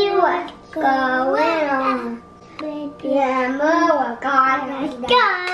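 A young child singing a Vacation Bible School song in short phrases with held, bending notes and brief pauses between them.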